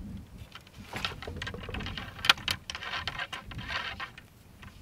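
A dry cloth patch on a thin cleaning rod rubbing as it is pushed down and worked in the bore of an 1853 Enfield rifle-musket: an irregular scratchy rubbing with small clicks as the rod knocks against the barrel. This is the final dry patch of the bore cleaning, run after a very wet one.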